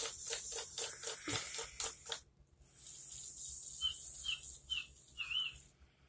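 Electronic chirping cat toy ball making bird sounds: a rapid run of clicks, about five a second, for the first two seconds, then a hiss with four short warbling chirps in the second half.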